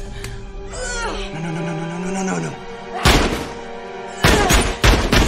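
Fight-scene soundtrack: a woman's sharp cry, falling in pitch, about a second in over tense score music, then a heavy thud of a blow around three seconds in and several more hard blows near the end.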